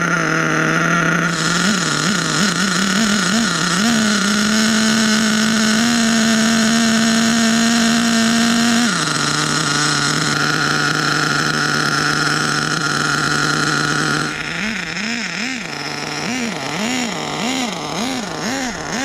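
HPI K5.9 big-block nitro engine in an HPI Savage XL running really loud, about 129 decibels up close, rich on the carburettor's factory needle settings. It holds a steady pitch, steps up to a higher steady pitch for several seconds and drops back, then from about two-thirds of the way in the pitch rises and falls about once a second with light throttle blips as the truck drives off.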